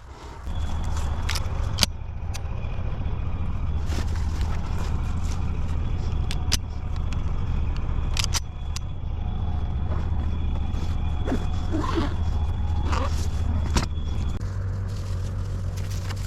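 A vehicle engine running steadily with a low hum, starting about half a second in and changing level near the end, with a few scattered clicks and knocks.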